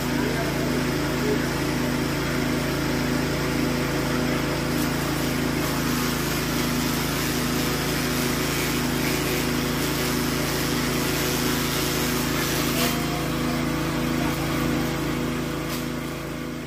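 Single-cylinder 6.5 HP Matrik petrol engine running steadily, driving a forage chopper while green grass is fed through its blades. The sound fades away near the end.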